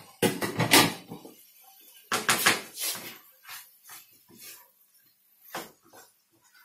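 Kitchen clatter of utensils and dishes being set down, then a utensil stirring and scraping a meat filling in a frying pan, with scattered light clicks and one sharper knock near the end.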